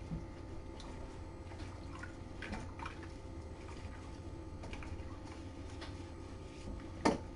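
Faint squishing and dripping as a liquid dip is worked into a kitten's wet fur, with scattered small ticks and one sharp click about seven seconds in.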